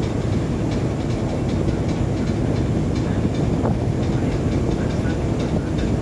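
Steady low rumble of a boat under way at sea, with faint scattered light clicks.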